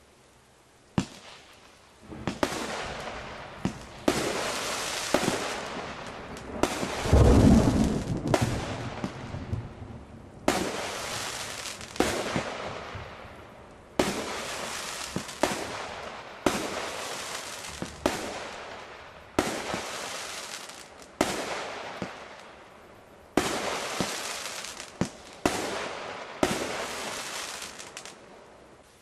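Small 16-shot consumer fireworks cake firing shot after shot, about one every one to two seconds. Each shot is a sharp pop followed by a fading rush of noise from the burst, and the loudest, deepest burst comes about seven seconds in.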